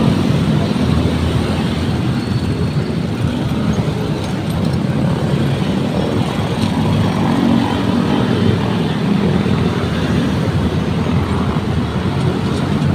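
Steady road traffic: motorcycles and cars running and passing along a busy street, a continuous rumble of engines and tyres.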